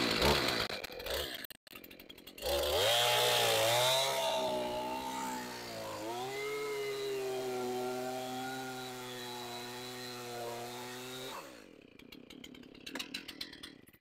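Stihl MS 271 Farm Boss two-stroke chainsaw revving, then cutting through a log at full throttle for about nine seconds, its pitch sagging and wavering under load before it drops back to idle near the end. The chain is dull, so the cut goes slowly and throws only fine sawdust.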